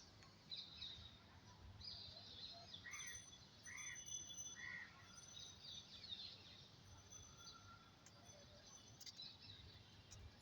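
Faint birdsong: several small birds chirping, with three short arching calls in a row about three to five seconds in.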